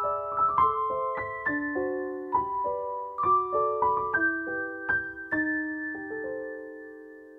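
Background piano music: a gentle melody of single notes over chords, ending on a held chord that slowly fades away over the last two seconds.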